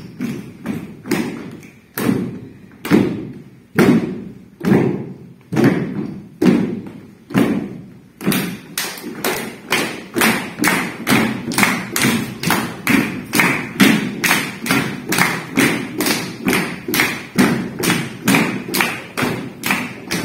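Rhythmic thumps in an even pulse, about one a second, quickening about eight seconds in to roughly two and a half a second.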